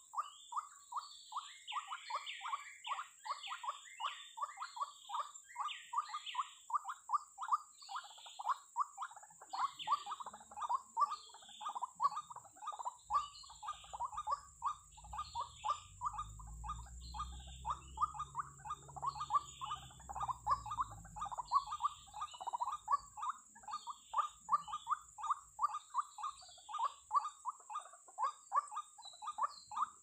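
White-breasted waterhen (ruak-ruak) calling: a long unbroken run of short harsh notes, about four a second. A steady high hiss runs beneath it, and a low rumble rises and fades midway.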